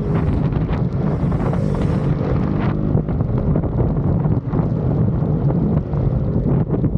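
Heavy wind buffeting a microphone at riding speed over a motorcycle engine running steadily.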